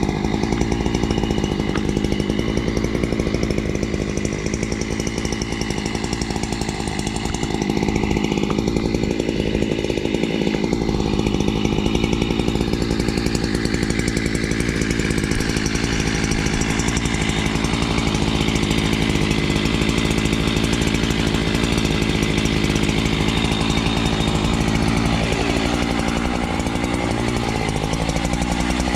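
Two-stroke chainsaw running steadily at high revs, cutting into a poplar trunk; about 25 seconds in its pitch dips and then climbs back.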